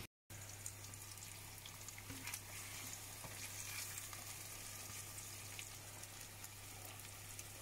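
Eggs frying in oil in a pan: a faint, steady sizzle with small crackles.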